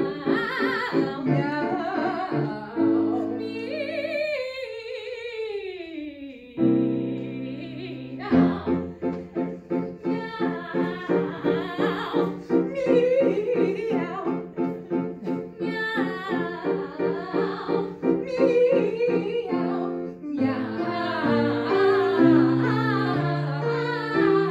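Two female voices singing an operatic duet on meowing syllables, with piano accompaniment. A long falling vocal slide comes a few seconds in.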